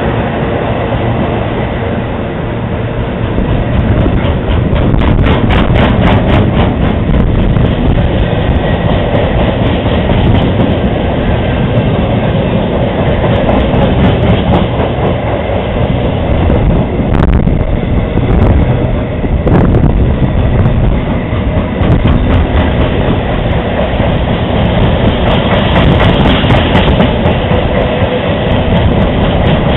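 Freight train's box wagons passing at speed, a loud continuous rumble with a rhythmic wheel clatter.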